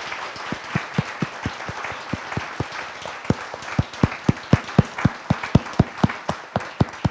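Audience applauding, with one clapper close by giving loud, even claps about four a second over the general clapping.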